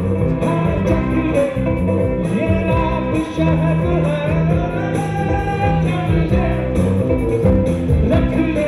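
Military band of brass, congas, electric guitars and keyboard playing a lively tune with a steady beat.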